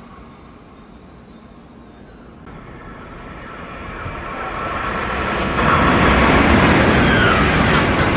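Doctor Yellow, the Shinkansen 923-series inspection train, passing through the station at speed: a rush of air and wheel-on-rail noise that swells from a few seconds in and is loudest over the last few seconds.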